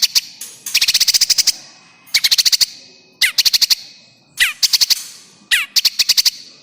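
Harsh distress calls of a prinia (prenjak) held captive. The calls come in about six loud bursts of rapid, sharp chattering notes, roughly one burst a second. This is the 'trapped prinia' call played as a lure to draw birds in.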